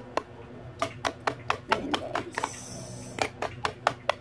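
Raw eggs being beaten by hand in a bowl, the utensil clicking against the bowl about five times a second, with a pause of about a second midway.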